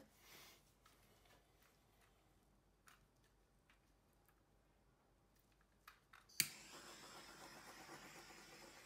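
Handheld butane torch lit with a sharp click about six seconds in, then burning with a steady hiss. Before that, only a few faint ticks.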